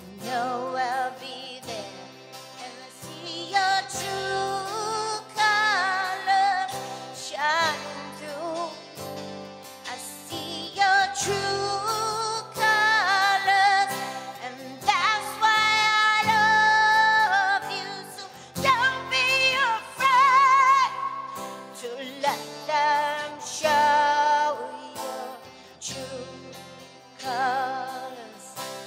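A woman singing a slow song live, holding long notes with a wavering vibrato, over acoustic guitar accompaniment.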